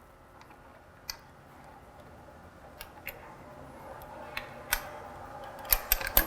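Light metal clicks and ticks as a bicycle's front wheel is taken off: its quick-release skewer is worked loose and the wheel is freed from the fork. The clicks are sparse at first, with a quick cluster of sharper ones near the end.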